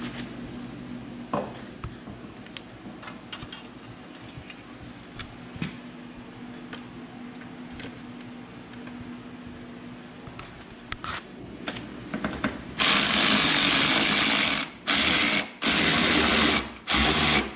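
Cordless power ratchet running in four runs near the end, the longest about two seconds, as it drives in the mounting bolts of a slip-on ATV exhaust. Before that there are scattered clicks and light metal knocks.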